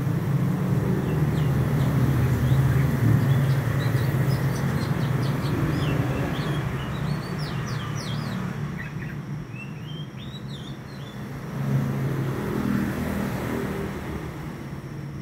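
Young male oriental magpie-robin (white-breasted kacer) in full song: a quick run of short, high chirping and whistled notes through the first two-thirds, densest a little past the middle. Under it runs a vehicle's low engine rumble, loudest in the first half, fading, then swelling again near the end.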